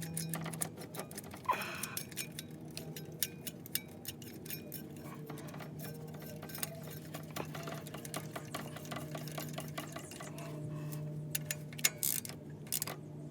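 Hand ratchet clicking in quick runs as a spark plug socket is turned on the engine, over a steady low hum.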